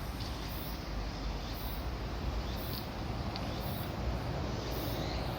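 An insect's high-pitched chirps repeating evenly about once a second, over a steady low rumble of distant traffic.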